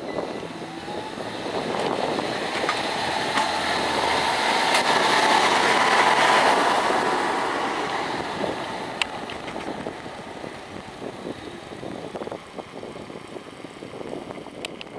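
John Deere 6150R tractor's six-cylinder diesel engine and its loaded tipping trailer driving past, the sound growing to a peak about six seconds in, then fading as they move away.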